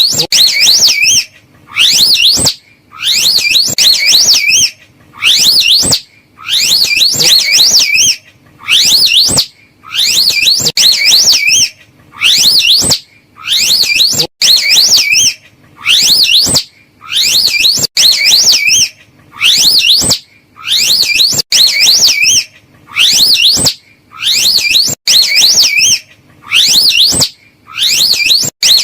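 Slow loris call: a loud, high, wavering whistle of about a second, its pitch rising and falling several times, repeated over and over with short gaps between calls.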